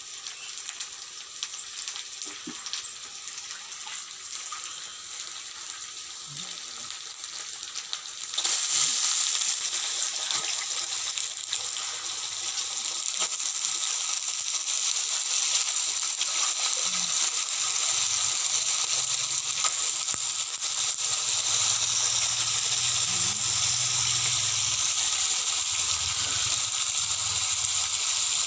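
Frying in hot oil in an iron kadai: a quieter sizzle of frying onions, then about eight seconds in the sizzle jumps louder as raw chicken pieces go into the pan, and it carries on steadily.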